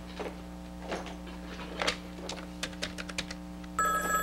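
Light, irregular typing clicks, then near the end a telephone bell starts ringing.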